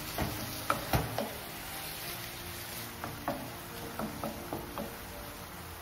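Spatula stirring a thick masala in a non-stick frying pan, with scattered light taps and scrapes against the pan.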